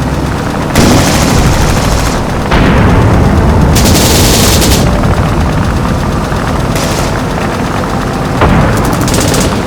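Battle sound effects: machine-gun fire and gunshots mixed with booms, a dense, continuous din that turns suddenly louder about a second in and again near the end.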